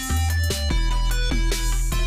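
Background music track with plucked guitar over a steady bass and beat.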